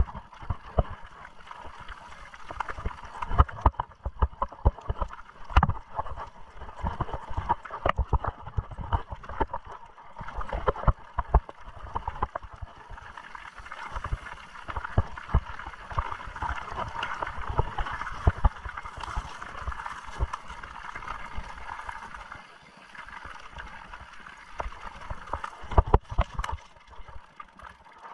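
Mountain bike riding over a rough, stony trail: a constant irregular clatter of knocks and rattles from the bike, over a steady rushing hiss of tyres and air. The rattling thins out briefly a little after the middle.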